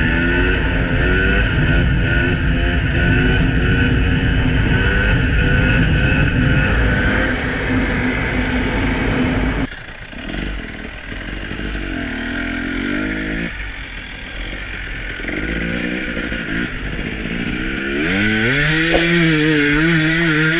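2018 KTM EXC 300 TPI's single-cylinder two-stroke engine revving up and down under changing throttle while riding. It drops off suddenly about ten seconds in and runs lower and uneven, then climbs to high revs and holds near the end.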